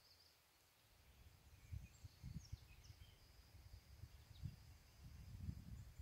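Wind buffeting the microphone in low, irregular gusts that build from about a second in and grow stronger toward the end, over a faint, steady, high hum of grass insects and a few faint chirps.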